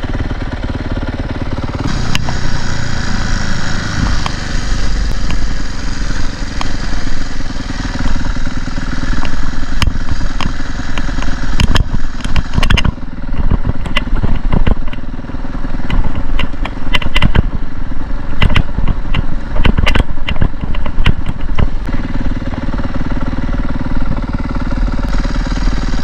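Dirt bike engine running and revving up and down as it rides over rutted ground, with many sharp knocks and clatters through the middle stretch.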